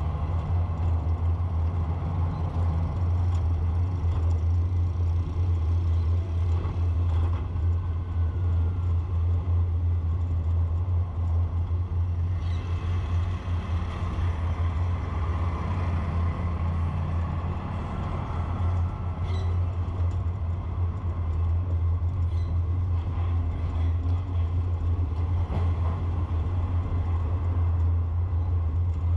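Steady low rumble of engine and road noise from the moving vehicle the camera rides in.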